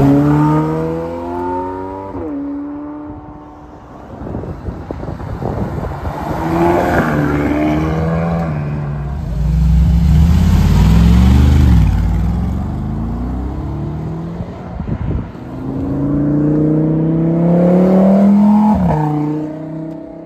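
Sports cars accelerating away one after another, each engine revving up in a rising pitch, with a loud deep rumble as a Ferrari California's V8 goes by in the middle. The last pull, near the end, rises and then cuts off sharply.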